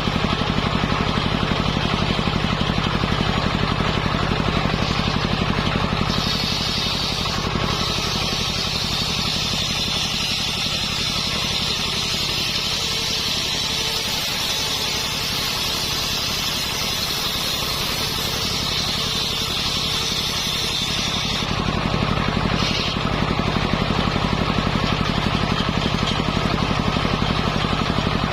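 Engine of a mobile circular-saw sawmill running steadily. From about six seconds in until about twenty-one seconds, the circular saw blade cuts through coconut palm wood with a loud, high hissing whine, then the engine runs on alone.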